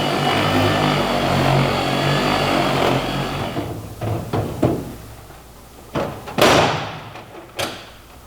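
A power buffer's motor running steadily, then winding down about three and a half seconds in. A handful of knocks follow as parts of the metal toolbox are slid and shut, the loudest a sliding bang about six and a half seconds in.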